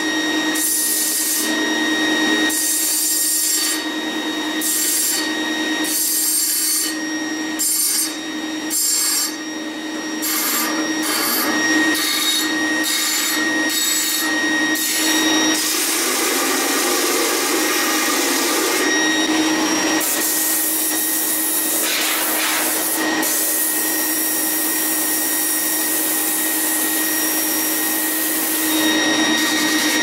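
Homemade disc sander powered by a washing-machine motor, running with a steady hum and whine while steel stock is pressed against the abrasive disc. Over the first ten seconds the grinding comes in short repeated strokes; after that come long, continuous grinding passes.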